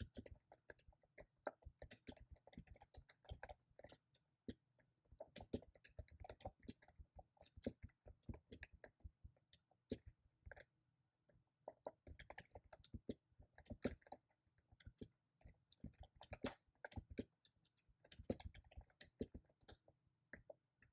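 Faint typing on a computer keyboard: quick irregular runs of key clicks broken by a few short pauses.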